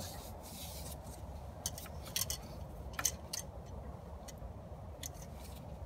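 Irregular sharp metallic clicks from spring hose clamp pliers being fitted to and worked on a coolant hose clamp, over a steady low background rumble.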